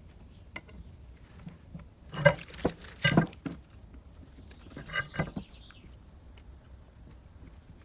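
Handling noise: scattered light clicks, with a dense cluster of clicks and knocks about two seconds in and a shorter one about five seconds in.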